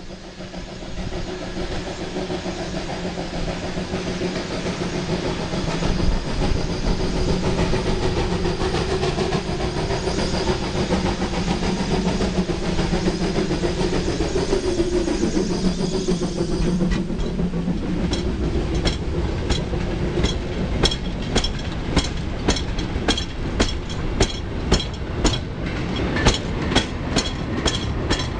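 Heavy freight steam locomotive working hard up a gradient. It grows louder over the first couple of seconds, and its pitch drops as it passes about halfway through. Then a train of coal wagons rolls by with a regular clickety-clack over the rail joints.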